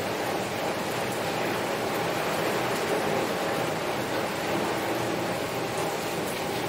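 Heavy rain beating on a window pane, a steady dense patter without pauses.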